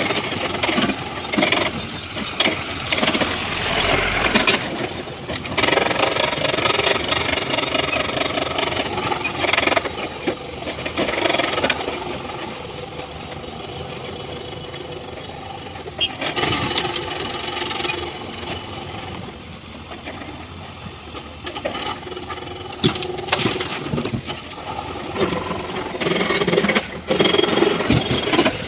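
Heavy diesel engine of an excavator working while it loads rock into a dump truck, with a few sharp knocks along the way. Voices are heard underneath.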